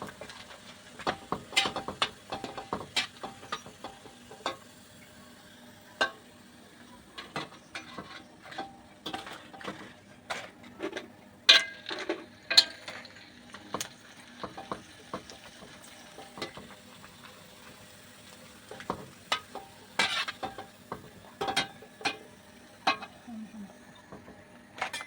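Fish crackers frying in a pan of oil as they are stirred. A utensil knocks and scrapes against the pan in irregular clinks over a faint sizzle.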